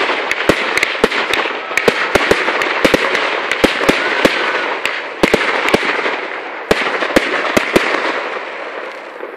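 Fireworks display: a rapid, irregular series of sharp bangs over a continuous hiss, thinning out and fading near the end.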